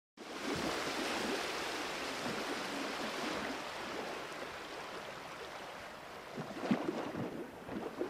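Sea surf washing against a rocky shore: a steady hiss of breaking water that slowly fades, with a few sharper splashes near the end.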